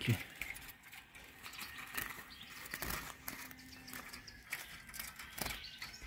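Soft footsteps and rustling with a few light knocks, over a faint outdoor background.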